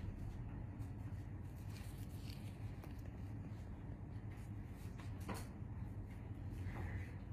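Quiet room tone: a steady low hum with a few faint short clicks, the clearest about five seconds in.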